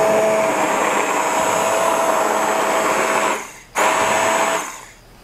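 Handheld immersion blender running in a pot of cooked tomato sauce, blending it into a chunky sauce. It runs steadily, stops briefly about three and a half seconds in, runs again for about a second, then stops near the end.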